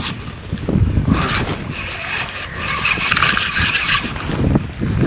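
Wind buffeting the microphone, with irregular low rumbles over a rushing hiss.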